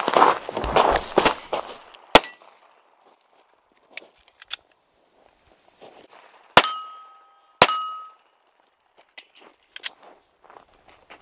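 Footsteps crunching on gravel, then three pistol shots: one about two seconds in and two a second apart near the middle. Each shot is followed by a short metallic ring and a fading echo.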